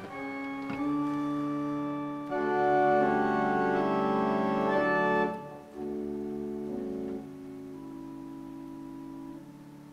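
Henry Willis pipe organ playing sustained chords. They swell to their loudest from about two seconds in, break off just after five seconds, and go on as softer held chords that step quieter toward the end.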